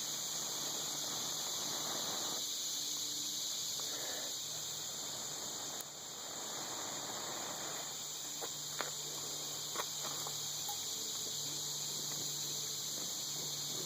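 Steady high insect chorus, with stretches of rushing noise lasting a second or two at a time, and a few light clicks a little past the middle.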